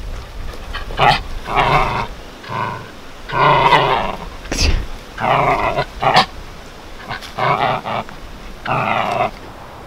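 Small wire-haired terrier growling playfully while it tugs at a stick, in a run of short growls broken by pauses, with a few sharp clicks in between.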